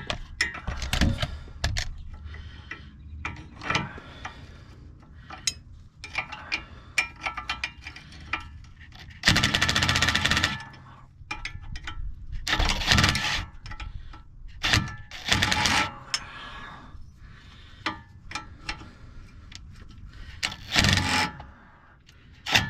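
Metal hand tools clanking, clicking and scraping against the car's steering parts, with several louder rasping bursts of about a second each.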